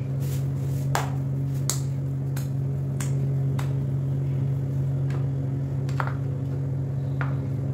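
A steady low mechanical hum, with light sharp clicks about every half second to second while chapati dough is pinched off and rolled into a ball by hand.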